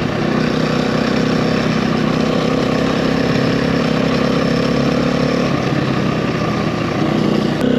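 KTM dirt bike engine running steadily at an even pitch, with a slight change in tone near the end.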